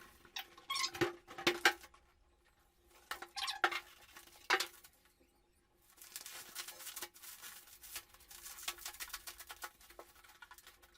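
A PC case being lifted out of its shipping box: packaging rustling and scraping with light knocks, in scattered bursts with short pauses.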